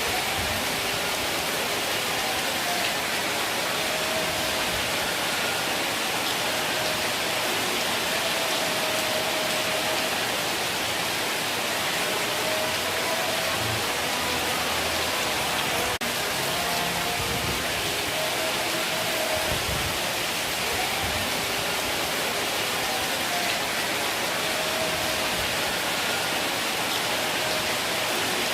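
Heavy rain falling steadily: a dense, even hiss. Faint short tones come and go now and then behind it.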